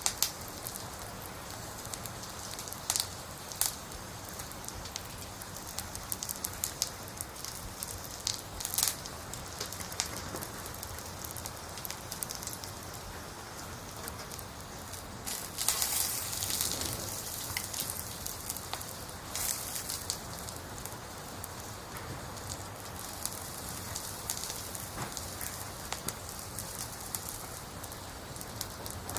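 Campfire crackling: scattered sharp pops over a steady hiss, with a brief louder rush of hiss about halfway through.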